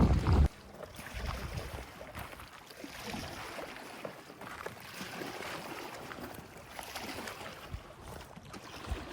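Wind buffeting the microphone, loud and low, cuts off suddenly half a second in. It gives way to a soft, steady hiss of wind and water on a boat at sea, swelling gently every second or two.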